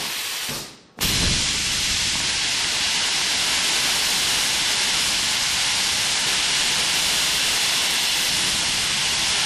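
20-amp plasma cutter cutting 16-gauge sheet steel: a steady hiss of air and arc. The hiss fades out just after the start and comes back suddenly about a second in, then holds steady.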